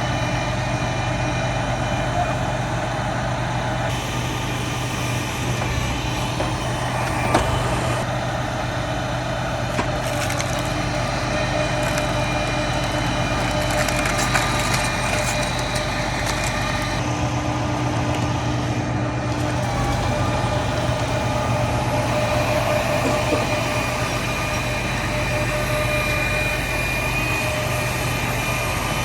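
A large engine running steadily under load, with wood crunching and splintering over it, as heavy tree-removal machinery works.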